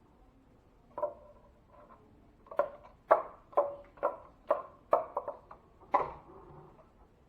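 A run of short, sharp strokes of a hand tool working drywall, about two a second after a single stroke near the start, each with a brief metallic ring.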